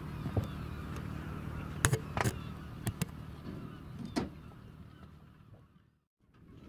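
Sheep packed in a livestock truck compartment, a few sharp knocks of hooves shifting on the deck over a steady low hum from the truck. The sound fades out shortly before the end.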